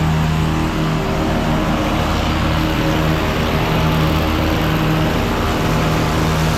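An engine running steadily at a constant speed, giving an even, unchanging hum.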